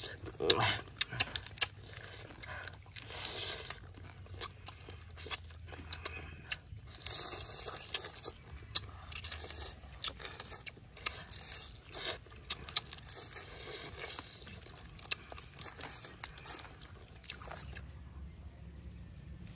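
Close crunching and chewing of crispy deep-fried chicken feet, many sharp crackles as the bones and skin are bitten through. The crunching dies away near the end.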